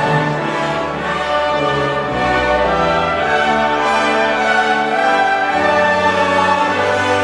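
Instrumental music: slow, sustained chords that change every second or so.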